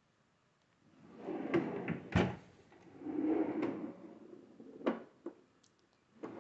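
Kitchen drawers sliding on their runners: one drawer is pushed shut with a knock about two seconds in, then another is pulled open. A sharp click follows near the end.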